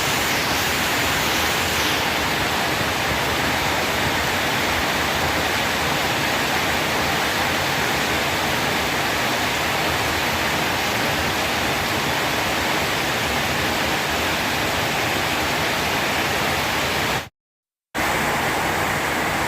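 Heavy rain pouring down in a steady, dense hiss. It cuts out briefly near the end and comes back the same.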